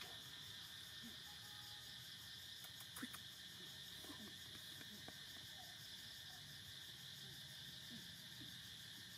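Faint, steady insect chorus, crickets or similar, with a few soft chirps and a faint click about three seconds in.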